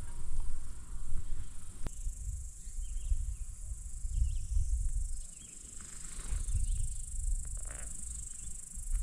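Rough, gusty rumble of wind and trail noise on a GoPro action camera's microphone during a downhill mountain bike ride, with a steady high insect buzz running behind it.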